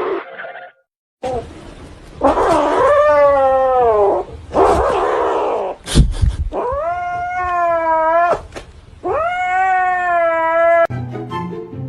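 Cat yowling: a series of long, drawn-out caterwauling calls, each bending in pitch, with a sharp click about halfway through.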